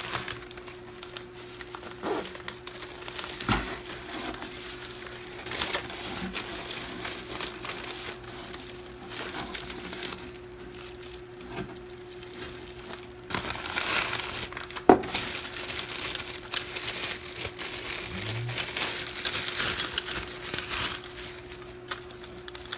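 Plastic packaging crinkling and rustling as a compact tripod is worked out of its bag, with a few sharp knocks along the way. The rustling grows heavier in the second half.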